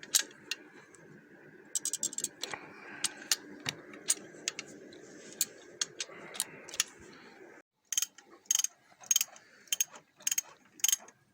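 Ratchet torque wrench tightening cylinder head bolts: irregular sharp metallic clicks with short runs of quick ratchet ticks, broken by a brief gap a little past halfway.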